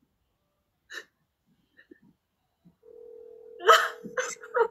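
Ringing tone of an outgoing phone call: a steady single tone that starts a little under three seconds in and holds for about two seconds. A few short voice sounds come over it near the end.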